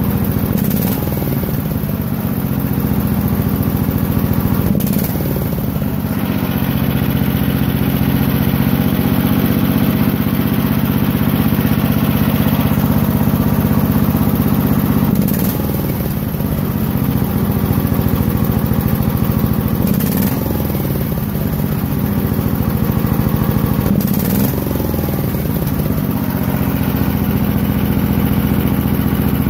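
Cast-iron single-cylinder Briggs & Stratton engine running steadily at high speed, its pitch briefly shifting and recovering several times as the throttle and governor linkage is moved by hand.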